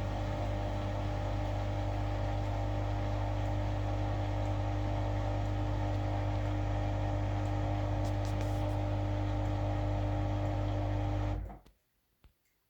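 Hoover 8+8 kg washer-dryer's drum motor running with a steady hum while the machine tries to spin an unbalanced load of four towels. The hum stops abruptly about eleven seconds in, followed by a faint click.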